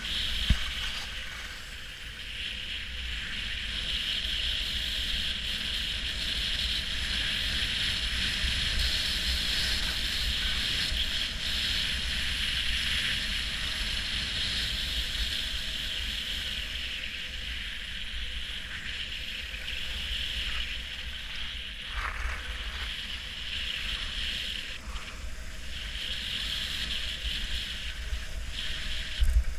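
Skis sliding and carving over packed snow, a steady hiss, with wind rumbling on the microphone and a brief knock about half a second in.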